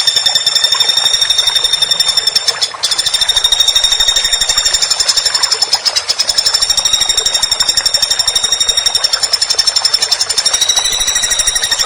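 Woodpecker giving a long, fast, high-pitched rattling call, the notes running together in a continuous trill with a brief break about three seconds in.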